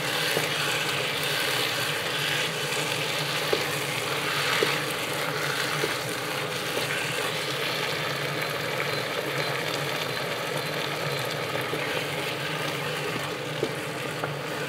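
Chopped vegetables for a ratatouille sauce (carrot, celery, garlic, bell pepper and tomato) sizzling steadily in oil in a pot, over a steady low hum. A few light clicks are heard, such as a utensil touching the pot.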